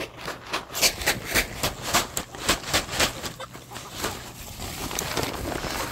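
A flock of free-range chickens clucking, with a quick rhythmic crunching about four times a second through the first three seconds.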